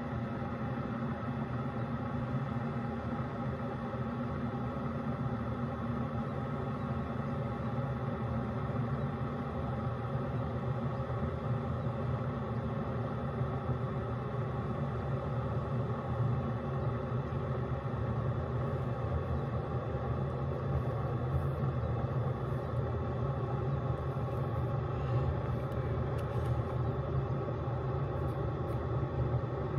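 Single-serve K-Cup coffee brewer running as it heats and brews, a steady low hum and rumble that gets slightly louder about halfway through.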